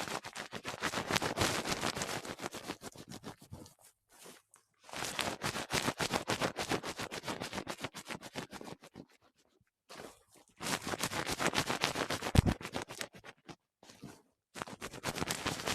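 Close-miked ASMR rustling and scratching, a dense crackle of tiny rapid scrapes, in bouts of a few seconds with short pauses between.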